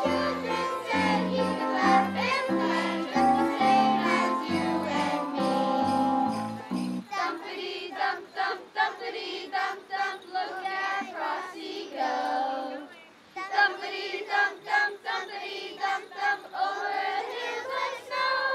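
A large group of young girls singing a Christmas carol together. A low, note-by-note accompaniment runs under them and drops out about seven seconds in, after which the children's voices carry on alone.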